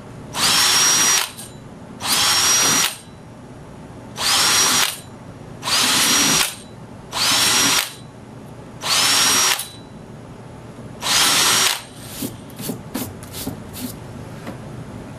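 Handheld power drill boring a row of holes through a kayak hull: seven short runs of about a second each, each starting with a rising whine as the motor spins up and then holding steady. A few light clicks and knocks follow near the end.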